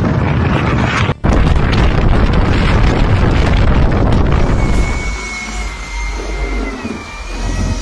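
Loud, rough rumbling of wind buffeting the microphone, broken by a brief dropout a little over a second in. From about five seconds in it gives way to a quieter low rumble with a steady high whine.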